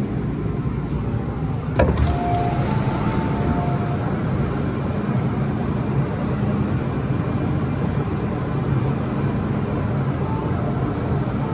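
MTR M-train electric train running, a steady rumble with a low motor hum and a single sharp knock about two seconds in, followed by a brief, higher steady tone.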